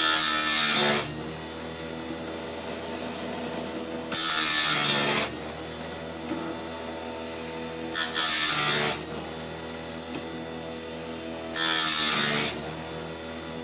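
Electric chainsaw sharpener's grinding wheel spinning with a steady motor hum, cut by four loud, harsh grinding bursts about a second each, roughly every four seconds, as the wheel is lowered onto bandsaw blade teeth one at a time.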